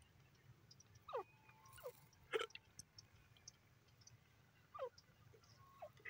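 Grey francolin giving a few soft, short calls that slide downward in pitch, spaced a few seconds apart, with one sharp click near the middle.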